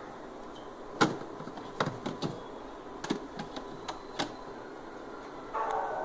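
Scattered sharp clicks and knocks from hands handling the plastic interior and vent cover of a Samsung refrigerator, the loudest about a second in, over a steady hum. A buzzing starts near the end.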